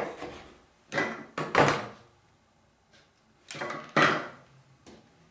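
Chef's knife cutting through a lime and knocking on a plastic cutting board, then the knife being set down on the board: a few separate knocks and scrapes.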